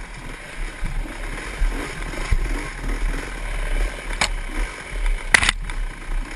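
Dirt bike engine running as it rides a rough, overgrown trail, heard through a helmet camera with wind and rattle noise over it. A sharp knock comes about four seconds in and a louder clatter about a second later.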